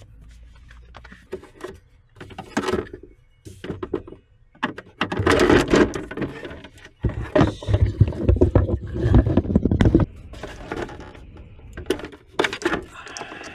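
Plastic dashboard trim being handled and pulled loose, with rubbing, scraping and knocks, and a long stretch of heavier rustling and thumping in the middle.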